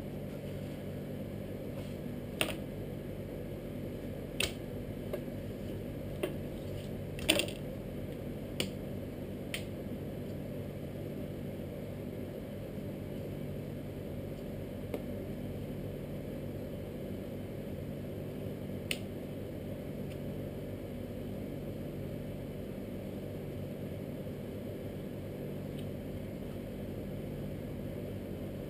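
Steady low hum with a few sharp clicks and taps, about six in the first ten seconds and one more later: a knife knocking against a wooden butcher's block as beef is trimmed.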